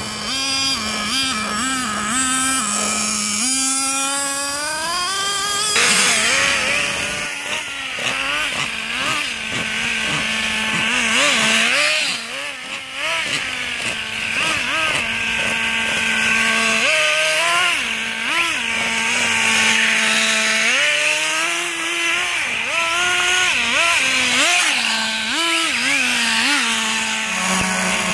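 Small two-stroke nitro (glow-fuel) engines of radio-controlled cars, revving up and down over and over as the cars are driven, with a steady lower engine note underneath.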